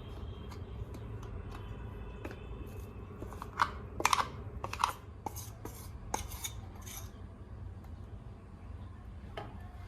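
Household handling sounds, likely kitchen work: a run of small clicks, scrapes and knocks as objects are handled, loudest about four to five seconds in, over a low steady hum.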